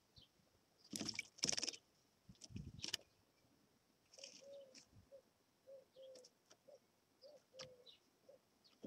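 A black redstart bathing in a shallow water dish: short bursts of splashing and wing-fluttering about a second in and again near three seconds. From about four seconds faint short low notes repeat roughly once a second.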